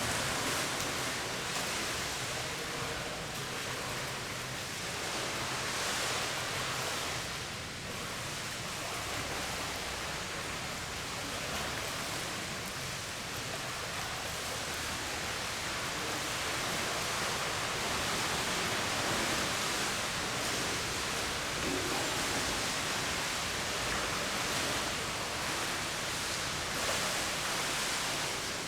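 Steady splashing and rushing water in a swimming pool from a swimmer doing front crawl, arms and kicking feet churning the surface.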